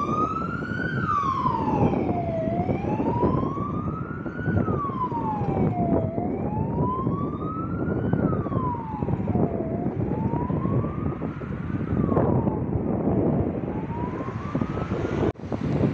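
Fire-brigade Ford Ranger pickup's electronic siren on a slow wail, rising and falling about once every three and a half seconds, over a low rumbling noise. It cuts off abruptly near the end.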